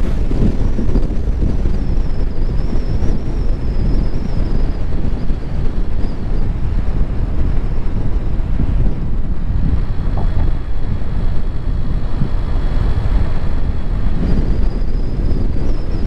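A car driving: steady road and engine noise, with wind rumbling on the microphone.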